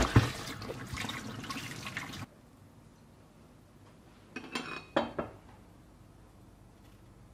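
Tap water running and splashing over tomatoes and cucumbers being rinsed by hand in a stainless steel sink. It stops abruptly about two seconds in. A few seconds later comes a short cluster of clinks and knocks as a ceramic bowl of vegetables is set down on a counter.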